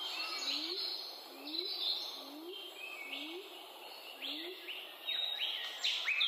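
Birds calling: many short high chirps and whistles, with a low rising note repeating about every two-thirds of a second that stops about three quarters of the way through.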